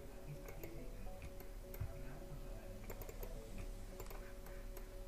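Faint, irregular clicks of a computer mouse and keyboard over a steady low hum.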